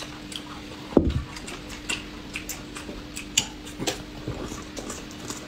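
Eating noodles at a table: a slurp about a second in, then chewing and scattered small clicks and taps of chopsticks and bowls, over a faint steady hum.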